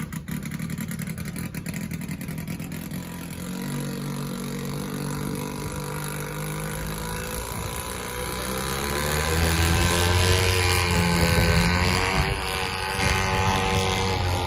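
Short-tail boat engine running, its pitch and loudness climbing from about four seconds in as it revs up, strongest about ten to twelve seconds in.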